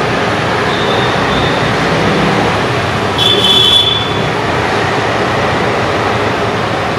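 Diesel-hauled passenger train running on the track: a steady, loud rumble of wheels and coaches, with a short high-pitched squeal about three seconds in.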